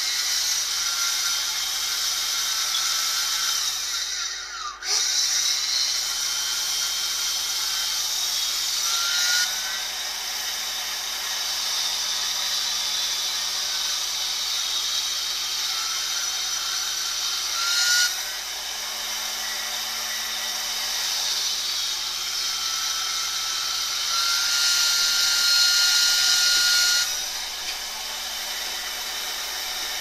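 Small Plessey aircraft DC squirrel-cage blower motor (rated 27.5 V, 11,200 RPM) running fast on 24 volts: a loud, steady high-pitched whine and rush of air, like a jet engine. About four seconds in it briefly cuts out and spins back up, and its pitch and level shift a few times later. The owner says its bearings need a bit of oil.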